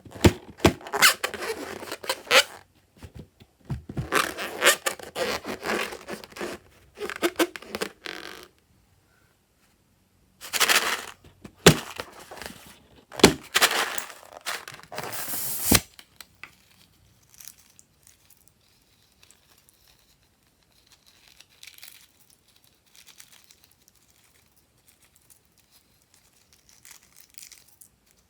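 Slime and balloon being handled: spurts of crinkly, tearing, crushing noise for about eight seconds, a short pause, then another five seconds of it, trailing off into faint scattered crackles.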